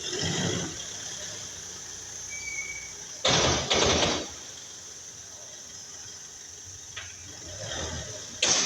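A Mitsubishi Triton 4x4's drivetrain making a noise: a loud, harsh burst about three and a half seconds in, followed by another half a second later, and the same again near the end, over a steady vehicle hum.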